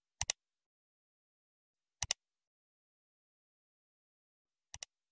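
Computer mouse click sound effects: three double clicks, each a quick press-and-release pair, about two to three seconds apart, with dead silence between them.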